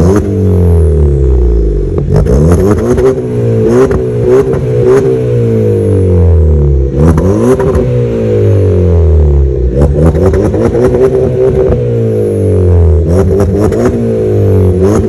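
VW Golf 1.4 turbo four-cylinder with a sport exhaust (sport resonator, flame arrester in place of the catalytic converter, rear silencer removed) revved again and again, each rev rising and falling back. Pops and crackles from the exhaust come as the revs drop.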